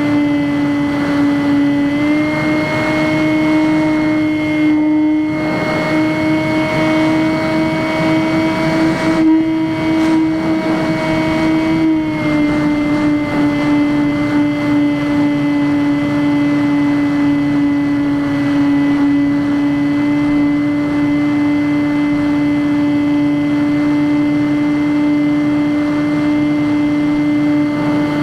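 Skywalker X5 flying wing's electric brushless motor and propeller running steadily in flight, a steady whine that rises slightly in pitch about two seconds in and drops back around twelve seconds as the throttle changes.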